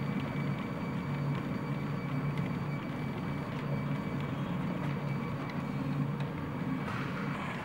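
RepRap 3D printers running, their stepper motors and belt drives making a steady hum with a thin, high, constant whine.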